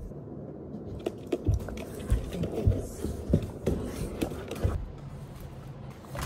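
Footsteps of a person and dogs coming down carpeted stairs: a run of irregular soft thuds.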